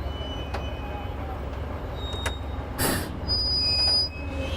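Heavy construction machinery running with a steady low rumble, a short hiss about three seconds in, and then a high squeal lasting under a second.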